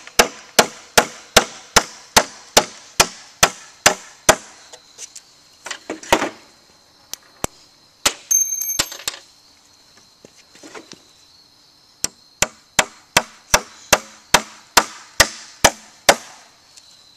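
Hammer driving a nail down through a pine 2x4 into a wooden leg: steady sharp blows about two and a half a second, a run of about eleven, a pause of several seconds with a few softer knocks, then another run of about eleven as the nail goes flush.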